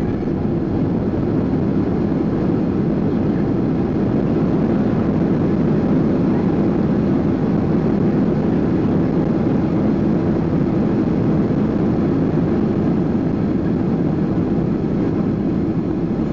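Cabin noise of a Boeing 737-800 rolling down a wet runway after landing: a steady, loud rumble of its CFM56-7B engines and wheels, heard through the fuselage.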